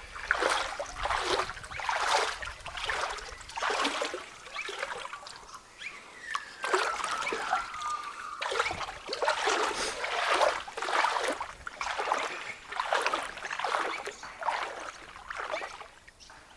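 Canoe paddle strokes dipping and splashing in flood water, in a steady rhythm of about one stroke a second, with water trickling off the blade between strokes. A short falling squeal is heard about seven seconds in.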